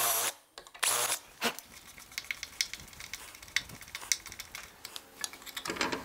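Cordless drill running briefly as it finishes a pilot hole through the brass stay pin plate into the timber sill, with a second short burst about a second in. Then a run of light clicks and ticks as the pin's screw is worked in by hand.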